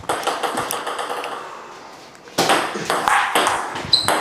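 Table tennis rally: the ball clicking back and forth off the paddles and table in quick succession, with a short high squeak near the end.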